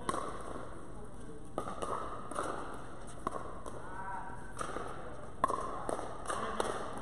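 Pickleball paddles hitting a plastic pickleball in a rally: about eight sharp pops at uneven spacing, the loudest about five and a half seconds in, echoing in a large indoor hall.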